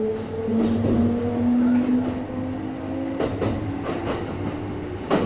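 Kintetsu 1031 series electric train heard from inside the car: the VVVF inverter traction-motor whine rises slowly in pitch as the train gathers speed, stepping up about half a second in. Wheels clack over rail joints a few times, with a loud clack near the end.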